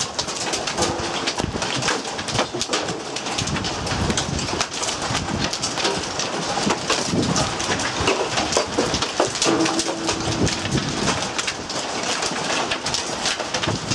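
Hail and heavy rain pelting down, a dense, continuous clatter of many small impacts.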